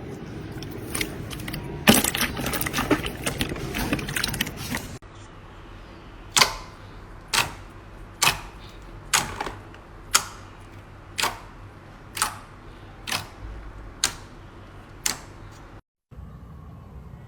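Slime being squeezed and pressed by hand, with dense crackling for the first five seconds, then after a cut a sharp pop about once a second, about ten in all.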